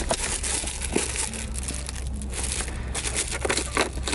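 Irregular rustling and crinkling handling noise over a steady low hum.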